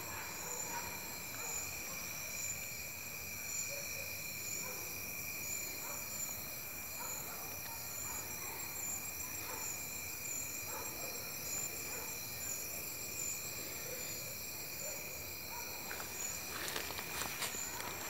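Night chorus of crickets and cicadas: several steady high-pitched trills at different pitches, one of them pulsing evenly, with a few rustles in the grass near the end.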